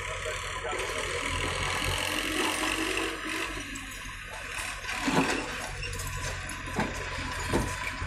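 JCB 3DX backhoe loader's diesel engine running under hydraulic load as the backhoe arm swings and works the bucket. A few sharp knocks come from the bucket and arm about five, seven and seven and a half seconds in.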